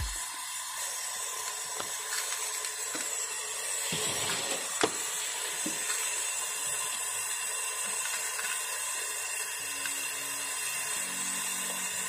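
Brazing torch flame hissing steadily while it heats a copper charging pipe joint on a refrigerator compressor, with one light click a little under halfway through.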